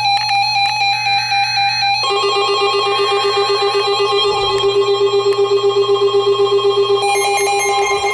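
Electronic alert tones of an Emergency Alert System broadcast: several steady tones sounding together like a chord. The chord changes about two seconds in and again near the end, and it pulses rapidly, about five times a second, in the middle.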